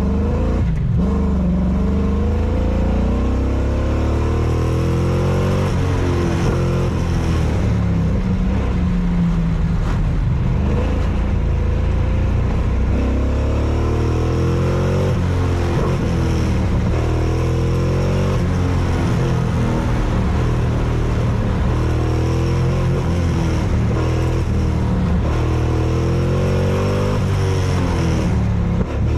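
A 1996 Corvette's LT4 V8 is driven hard, its pitch climbing and dropping every few seconds as the car accelerates and slows. The engine is misfiring, which is put down to bad spark plug wires.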